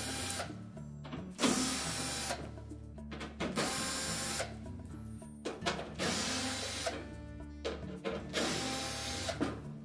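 Cordless drill/driver running in about five short runs, each under a second, backing out the screws that hold the back cover onto a dryer's control console. Small clicks between the runs.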